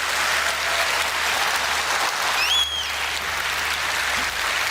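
Conference audience applauding after an applause line in a speech, with one brief high whistle-like call rising and falling above the clapping about two and a half seconds in.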